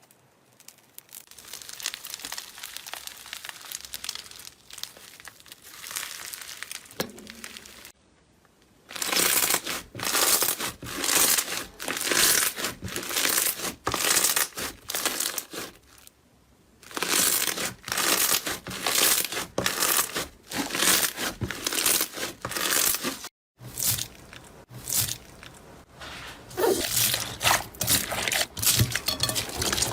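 Slime being handled by hand for ASMR: squeezed, pressed and squished, making crackly, sticky handling noise. A softer continuous stretch for the first several seconds gives way to repeated presses about once a second, with the sound cutting off briefly between clips.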